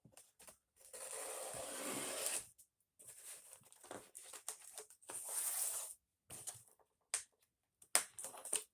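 A shipping package being torn open and handled: tearing and crinkling of packaging, with a longer tear about a second in and another about five seconds in, and small rustles and clicks between.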